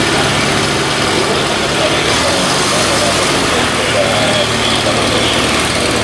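Light aircraft piston engine running steadily with propeller noise; its pitch shifts slightly about two seconds in.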